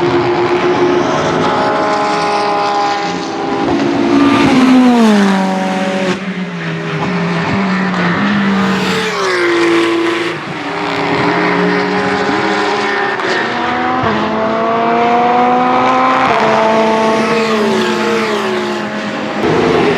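Ferrari 488 GT3 Evo's twin-turbo V8 race engine at speed. Its pitch falls in quick steps about four to six seconds in and again around ten seconds, as it downshifts under braking. It then climbs gear by gear and falls away once more near the end.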